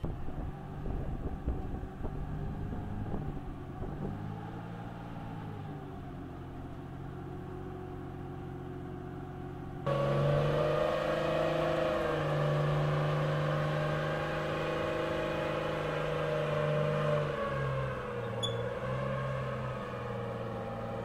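Diesel engine of a tracked M113 armoured personnel carrier running steadily as the vehicle is guided forward. The sound steps up sharply about halfway through and dips slightly in pitch near the end.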